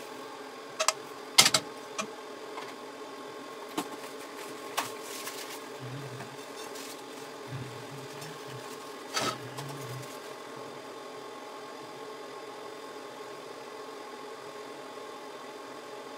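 A frying pan and a serving utensil clink and knock against a ceramic plate as pasta is served onto it: a few sharp knocks in the first five seconds, the loudest about one and a half seconds in, and another about nine seconds in. A steady mechanical hum runs underneath.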